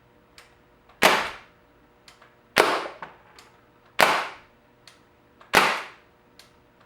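Crosman 1077 FreeStyle CO2 air rifle firing four shots, one about every one and a half seconds. Each shot is a sharp crack with a short ringing tail, and a faint click comes just before each shot.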